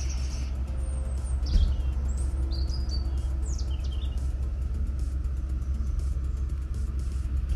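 Small birds chirping in short, gliding calls, most of them in the first three seconds, over a steady low rumble.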